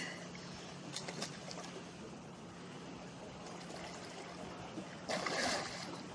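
A swimmer splashing and paddling in lake water beside a boat, water lapping, with a low steady hum underneath. A louder splash comes about five seconds in.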